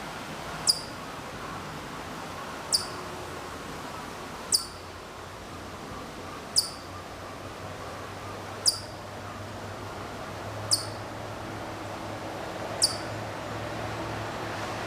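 Distant Hokkaido chipmunk (Siberian chipmunk) repeating a single high, sharp chirp about every two seconds, each chirp falling in pitch.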